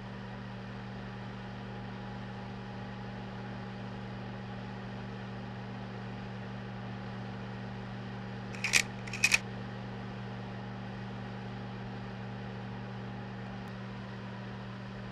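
Slide projector's steady motor-and-fan hum with hiss, broken about nine seconds in by a sharp double click-clack of its slide-change mechanism.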